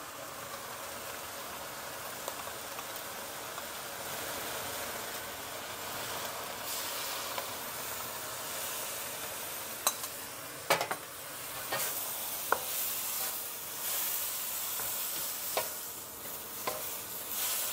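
Chicken and sugar snap peas sizzling in a hot wok as a stir-fry, a steady hiss that grows a little louder about halfway through. A few sharp knocks and scrapes of the cooking utensils against the wok come near the end.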